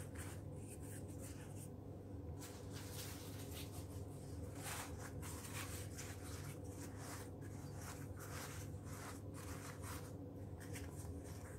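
Soft, irregular rustling and crinkling of thin yufka pastry sheets being crumpled by hand and pressed into a paper-lined baking tray, over a low steady hum.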